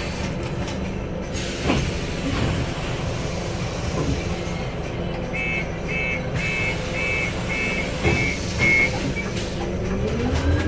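Scania Citywide CN280UB city bus under way, heard from the front of the cabin: its compressed-natural-gas engine running with road noise, climbing in pitch near the end as the bus speeds up. About halfway through, a run of about eight short electronic beeps, a little under half a second apart.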